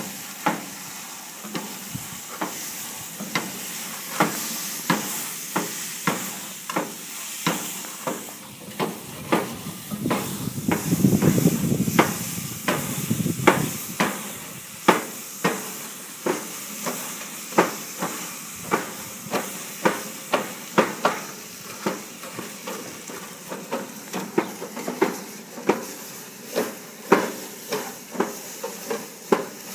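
Grill Daddy steam brush scrubbing hot grill grates: wire bristles scrape back and forth about one to two strokes a second over a steady hiss of steam as water hits the hot metal. A louder, rushing stretch swells for a few seconds around the middle.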